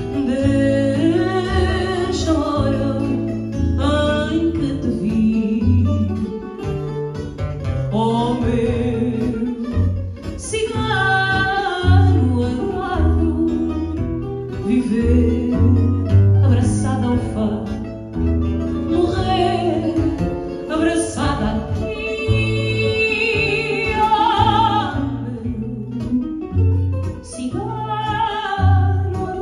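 A woman singing fado through a microphone with plucked guitar accompaniment, her voice in long, gliding held phrases over low bass notes.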